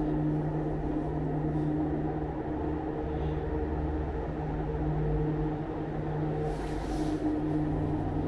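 Steady low mechanical hum with a few held tones and a low rumble, from the Schlossberg-Bahn inclined lift's car and drive as the car approaches the station.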